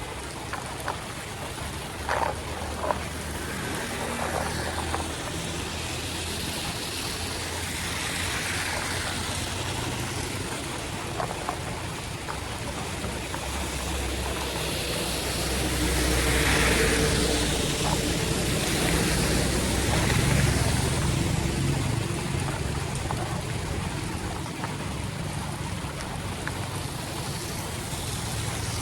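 Rain floodwater running steadily along a street and into a drain, with a louder swell and low rumble around the middle, as of a vehicle driving through the water. A few short knocks come about two seconds in.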